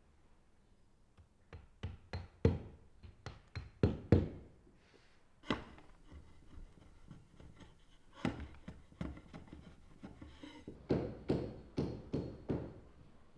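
Hammer knocking wooden plugs into the fastening holes of new wooden deck planks: irregular runs of sharp knocks, several a second, with short pauses between.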